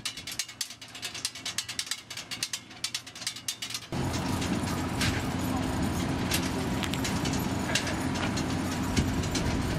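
A quick run of sharp mechanical clicks, several a second. From about four seconds in it gives way to a steady outdoor background noise with a low hum and a few single clicks.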